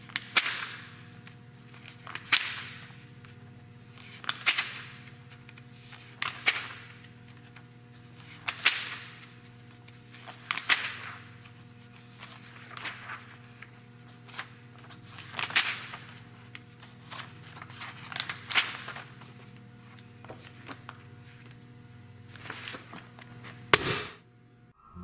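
Magazine pages turned by hand, one about every two seconds, each a short sudden swish of paper that fades quickly, over a steady low hum. The last and loudest flip comes near the end and is followed by a brief hush.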